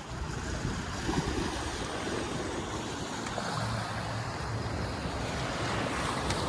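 Steady rush of water along the hull of a Beneteau First 36.7 sailboat running downwind under spinnaker, with wind blowing over the microphone.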